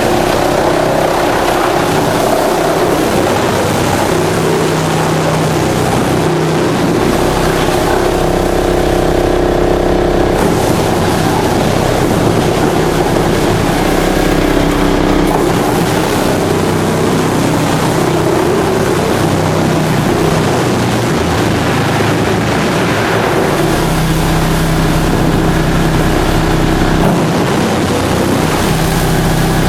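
Drum wood chipper running with a loud, steady mechanical drone. Its pitch shifts several times as the load changes.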